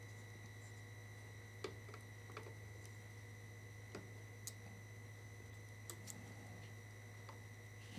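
Faint steady electrical hum and a thin high whine, with about seven light clicks and ticks scattered through, the sharpest a little under two seconds in, as a soldering iron tip works at the solder joints of a circuit board's chip pins.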